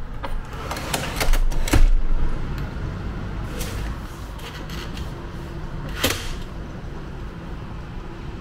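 Aluminium casement window handle clicking and the window frame knocking open, a run of clicks and knocks in the first two seconds. Further light clicks and rattles of a sliding fly screen about three and a half seconds in and a single knock about six seconds in, over a steady low rumble of city traffic.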